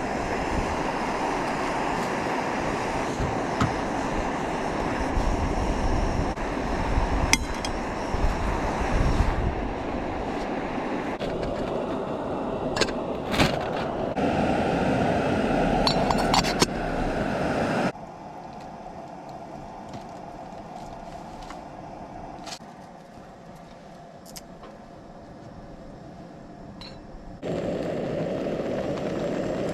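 Steady rushing noise with scattered light metallic clinks. It drops sharply to a quieter hiss about two-thirds of the way through and comes back near the end.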